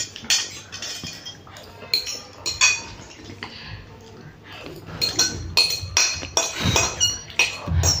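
Metal forks clinking and scraping against plates as two people eat instant noodles fast, in many short, irregular clinks.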